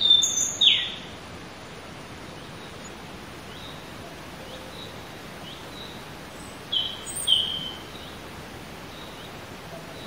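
A bird giving short, high chirps at intervals over steady background noise. The loudest are about a second in, one sliding down in pitch, and a pair near seven seconds in.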